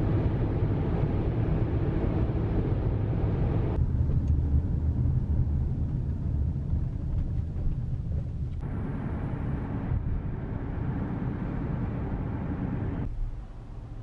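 Road and engine noise heard from inside a moving car: a steady low rumble that changes abruptly about four, eight and a half, and thirteen seconds in.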